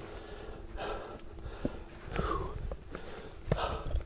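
A scrambler's heavy breathing: three or four loud, noisy puffs, one falling in pitch, with a few sharp knocks between them.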